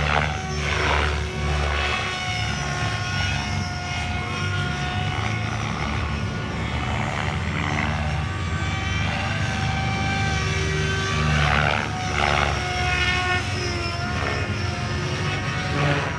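Tron 7.0 electric RC helicopter flying 3D aerobatics: a steady motor and rotor whine over a low rotor rumble, with several loud blade swooshes as it flips and turns.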